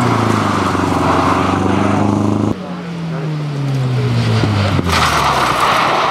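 Two historic Škoda saloon rally cars taking a bend one after the other. The first car's engine note is falling as it slows and cuts off abruptly about two and a half seconds in. Then the second car's engine falls in pitch as it brakes into the corner, and near the end its tyres scrabble on loose gravel.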